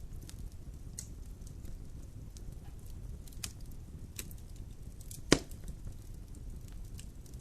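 Wood fire burning in a fireplace: a steady low rumble of flames with scattered crackles, and one loud sharp pop a little past five seconds in.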